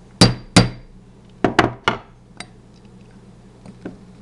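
Ball-peen hammer tapping a steel roll pin punch to drive the bolt catch roll pin into an AR-15 lower receiver, with sharp metal-on-metal strikes. Two strikes come at the start and a quick group of three about a second and a half in, followed by a lighter tap and a couple of faint knocks near the end.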